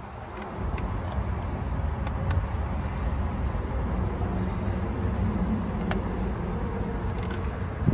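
Steady low background rumble, with a few faint metallic clicks from pliers working a hose clamp on a coolant hose.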